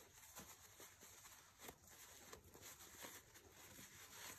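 Near silence, with faint soft rustles and ticks of cotton fabric being handled as it is turned right side out by hand.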